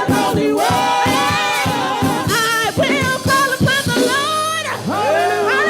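Live gospel praise music: singers backed by a band with a steady drum beat.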